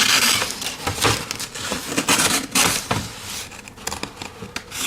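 Paper rustling and tearing as a pocket knife blade is pressed into it, with a few light handling knocks.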